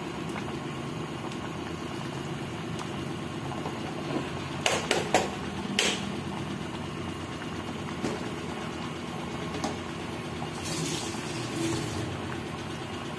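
Pork and chicken adobo in coconut milk bubbling in a pan on a gas stove: a steady low rumble, with a few sharp clicks about five seconds in and a brief hiss a couple of seconds before the end.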